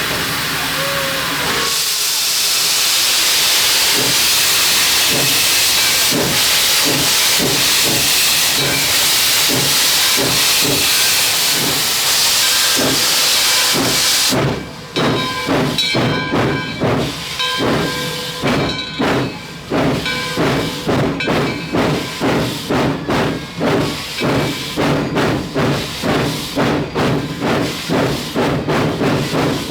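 Steam hissing loudly and steadily from the 1920 2-8-0 steam locomotive #18. About halfway through the hiss cuts off, and music with a steady beat takes over.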